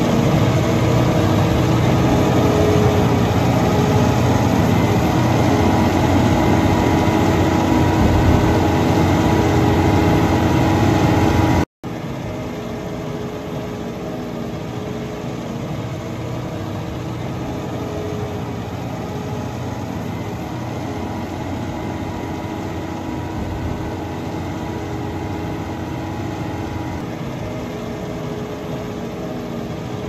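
Diesel engine of a self-propelled vertical feed mixer wagon running steadily under load while it cuts silage from the clamp. About twelve seconds in, the sound cuts out for an instant and comes back as a quieter, more distant steady engine hum.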